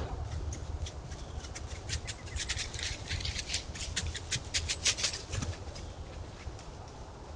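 Crackling rustle of dry leaf litter being stepped through by an animal, a quick run of crunches that thickens near the middle and fades out about two thirds of the way in, over a low steady rumble.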